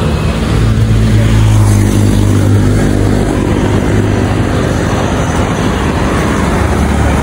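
Road traffic: a motor vehicle's engine running with a steady low hum over the noise of the road, a little louder from about a second in.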